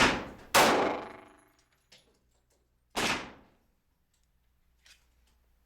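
Gunshots from a .45 ACP Glock 36 pistol, each a sharp report with about a second of echo: one right at the start, another about half a second later, and a third about three seconds in. The pistol is jamming after the first shot, which the shooter blames on its newly fitted extended slide stop.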